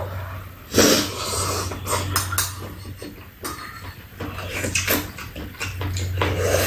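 Two people eating with spoons: spoons clinking against bowls, slurping soup from spoons and chewing, in short irregular bursts, the loudest about a second in. A steady low hum runs underneath.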